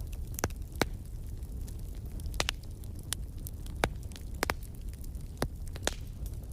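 Wood fire crackling in a fireplace: sharp, irregular pops and snaps, about eight in a few seconds, over a low steady rumble of the burning fire.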